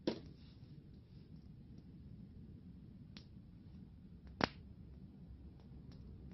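Campfire wood popping: a sharp crack at the start and another about four seconds later, a fainter pop between them, and small ticks over a low background rumble.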